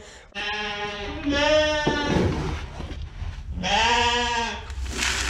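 Sheep bleating: three long bleats, the last two louder than the first.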